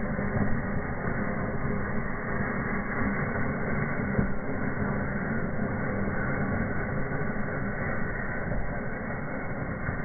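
Small fireworks burning in a fireplace: a steady, dense hissing and crackling of sparks and fountains that goes on without a break.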